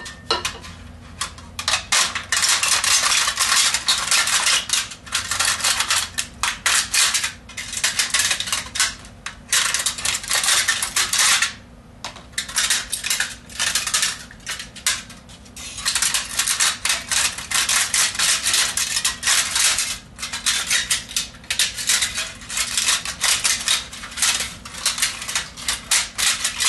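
A Damascus steel pocket knife blade slicing lengthwise through the thin aluminium wall of a pop can. It makes a rapid scraping, crackling metal sound in long runs, broken by short pauses.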